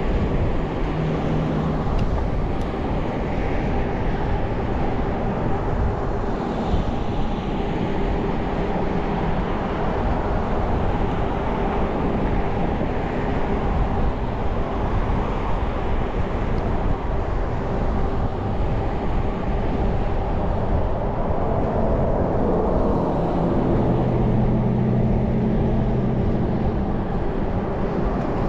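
Wind buffeting the microphone of a camera riding on a moving bicycle, a steady rushing rumble. A low steady hum joins it for a few seconds about three-quarters of the way through.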